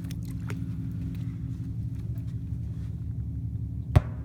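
A single short, muffled thump about four seconds in from an M5000 salute firecracker exploding underwater, over a steady low hum.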